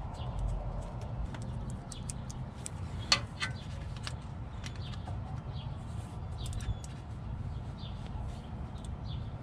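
A small steel wrench ticking and clicking against metal as a glow plug is snugged into an LML Duramax 6.6 diesel's cylinder head, with one sharper clack about three seconds in.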